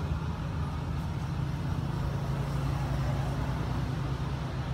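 Steady low engine rumble, a little stronger through the middle.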